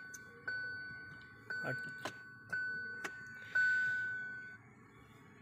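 Hyundai Grand i10 Nios's electronic warning chime sounding one clear tone about once a second, each ding fading before the next; the last ding, near the end, is the loudest and dies away. A few soft clicks sound between the dings.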